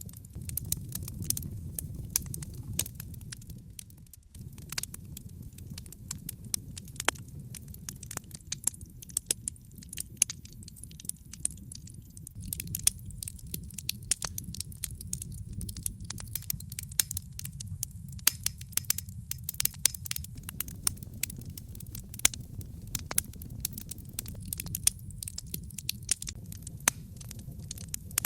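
Wood fire burning in a fireplace: logs crackling with many irregular sharp pops and snaps over a steady low rumble.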